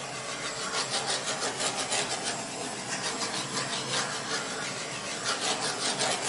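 Handheld torch flame hissing steadily as it is passed over wet acrylic paint on a canvas, popping the air bubbles in the pour.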